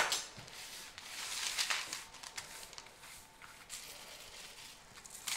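Dry oats and chopped nuts pouring and pattering onto baking paper, a soft rustling strongest a second or two in, then thinning to scattered ticks. There is a sharp tap at the very start.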